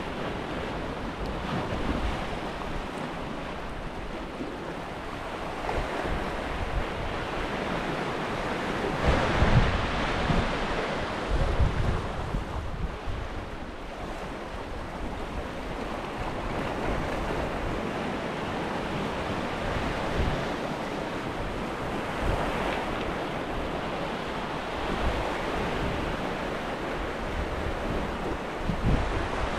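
Sea surf washing and breaking against the rocks below, with wind buffeting the microphone. The surge swells louder about a third of the way in and again more gently later.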